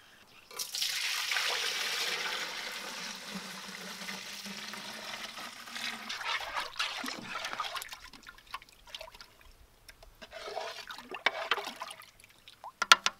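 Liquid ice cream mix of milk, cream and sugar poured in a heavy stream from an aluminium stockpot into the metal canister of an ice cream freezer, splashing for about five seconds and fading as the pot empties. After that, a spoon scrapes and taps in the metal pot, with a few sharp clinks near the end.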